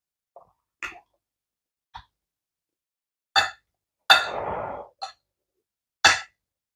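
A person chewing food with the mouth closed: a series of about seven sharp lip smacks and mouth clicks at uneven intervals. One, about four seconds in, trails into a short hiss.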